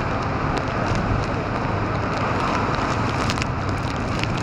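Hurricane wind and storm-surge waves churning and splashing over a seawall: a steady rushing noise, with wind buffeting the microphone and scattered sharp spatters of spray or rain.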